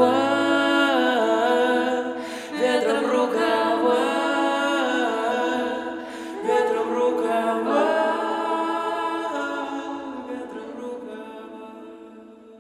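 Wordless sung vocals in three long, drawn-out phrases with little or no bass under them, fading out near the end as the song finishes.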